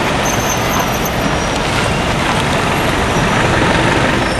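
Steady city traffic noise: cars and taxis running along a busy street.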